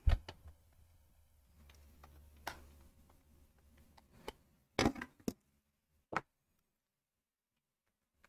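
Plastic Lego pieces being handled and clicked together: a scattering of sharp clicks and taps, with a quick cluster about five seconds in.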